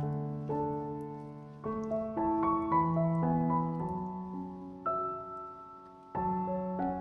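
Background piano music: a slow, gentle melody with chords, notes struck and left to fade.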